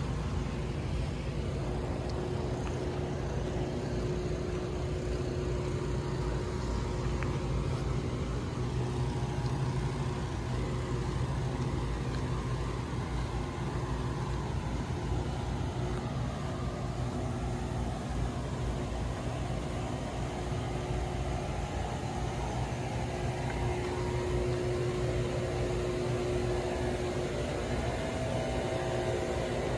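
Steady low outdoor rumble with faint, even hums running through it and no distinct events.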